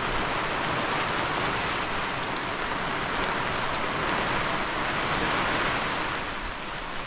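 Heavy rain falling steadily: an even, dense hiss.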